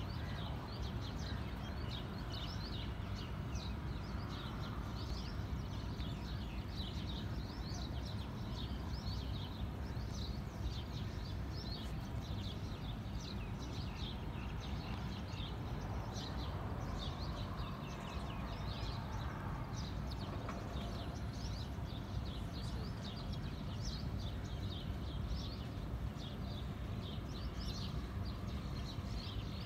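Many small birds chirping in the trees, a dense run of short, high calls all through, over a steady low background rumble.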